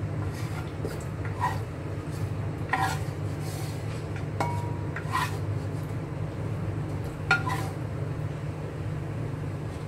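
Kitchen utensils clinking and scraping against crockery or cookware, about six short strikes with a brief metallic ring, one held for about half a second near the middle, over a steady low hum.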